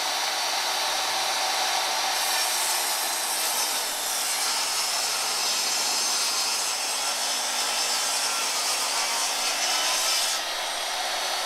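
Jobsite table saw ripping a 2x4 lengthwise in half, a steady cutting sound. A little before the end the cut finishes and the saw runs on freely.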